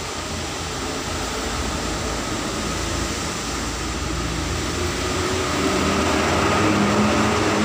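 Steady mechanical background noise like a fan or air conditioner, with a low hum, growing slightly louder near the end as faint pitched tones come in.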